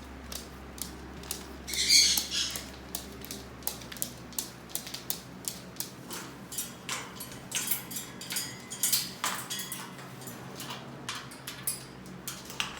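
Irregular light clicks and taps, with one short, high-pitched call from a pet bird about two seconds in.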